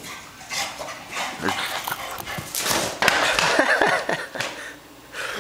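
Adult English bulldog barking excitedly, a string of barks in quick succession that stops shortly before the end.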